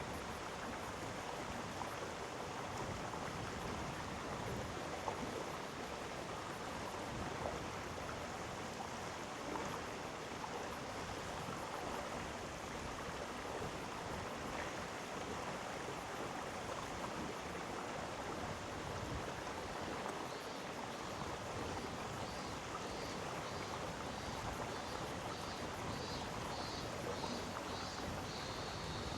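Mountain stream in a gorge flowing steadily over rocks, a continuous even rush of water. In the last few seconds a faint series of short high chirps repeats a little over once a second.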